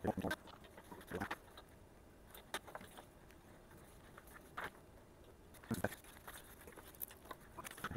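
Sparse clicks, taps and light knocks at irregular intervals from hands fitting parts and connectors on a racquet diagnostic machine being assembled.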